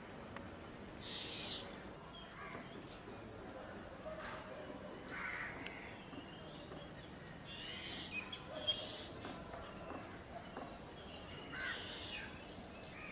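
Birds calling now and then over faint outdoor background noise, with a busier cluster of sharper calls about eight seconds in.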